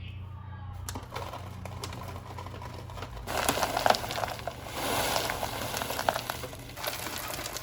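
Packaging crinkling and rustling with small handling clicks, growing busier and louder about three seconds in.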